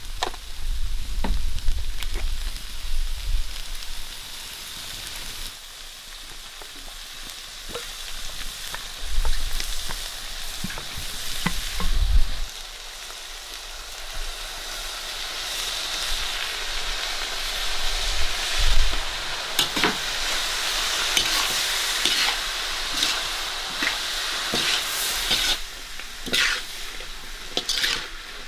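Food sizzling in a hot pan while being stirred, with scattered clicks and scrapes of a utensil against the pan; the sizzle grows louder from about halfway through.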